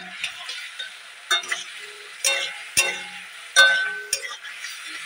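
A metal spatula scraping and clinking against a metal kadhai as onion and capsicum are stirred, about six sharp scrapes over a steady sizzle of the frying vegetables. The loudest scrape comes a little past halfway.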